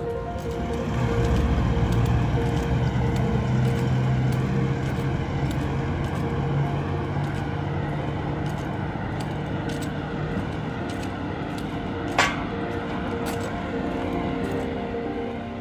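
A motor vehicle running, its low hum swelling about a second in and fading away over the next several seconds, with a single sharp click near the end. Steady musical tones sound underneath.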